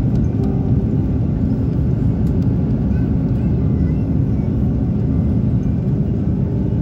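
Airbus A330 jet airliner's engines and airflow: a steady low rumble with no change in level.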